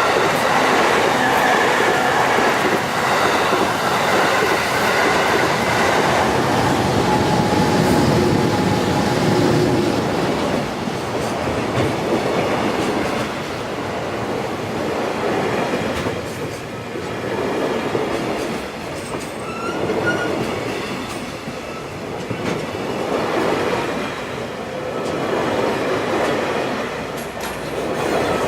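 Electric locomotive-hauled train running past: a loud rumble of wheels on rail with clattering over the rail joints. A thin squeal of the wheels rings through the first several seconds, and in the second half the sound swells and fades over and over as the cars go by.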